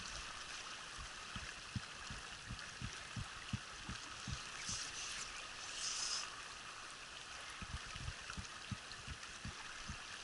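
Mountain trout stream running steadily. Through it come soft low thumps, about three a second, and near the middle two short hissing bursts.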